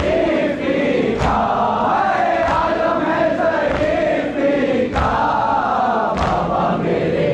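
A crowd of men chanting a Muharram mourning lament (noha) in unison, with a sharp beat about every second and a quarter in time with the chant.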